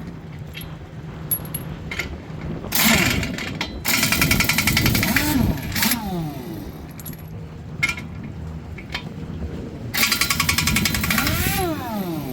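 Impact wrench undoing the wheel nuts on a truck wheel: three bursts of rapid hammering, each a second or so long.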